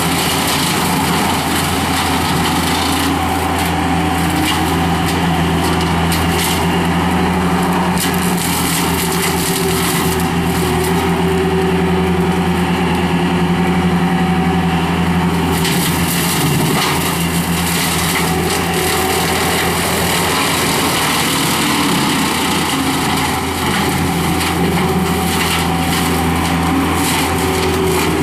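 Skid steer loader engine running steadily at high revs, driving a CID Xtreme 60-inch standard-flow brush cutter, with scattered sharp clicks and snaps mixed in.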